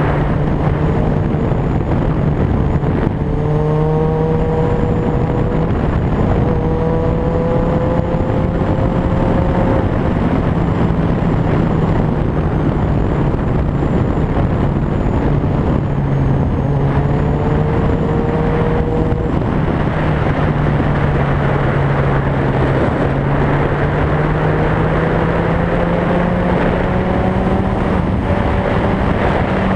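Vehicle engine running under heavy wind noise on the microphone, its pitch rising in a few long climbs as it speeds up.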